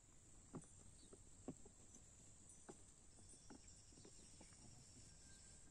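Near silence: faint outdoor quiet with a steady high hiss and a scattering of light clicks and taps.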